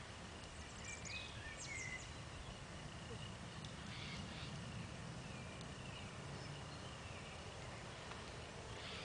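Faint outdoor ambience: a steady low rumble under a thin steady high tone, with a few short bird chirps about a second in and again around four seconds in.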